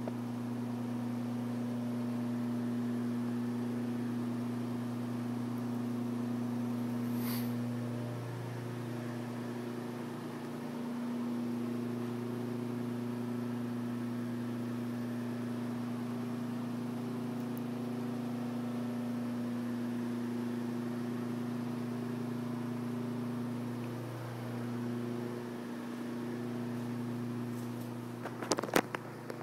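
A steady low mechanical hum with a few steady pitched lines in it, dipping briefly twice. A few sharp knocks near the end.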